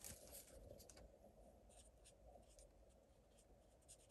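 Faint scratching of a Blends alcohol marker tip colouring on card stock: a few soft, short strokes.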